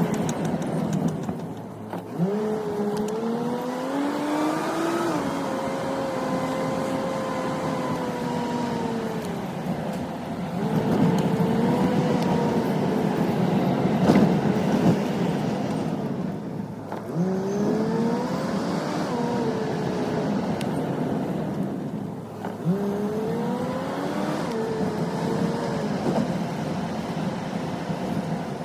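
Pickup truck engine pulling away and accelerating about four times, its pitch climbing and shifting up before settling into a steady cruise.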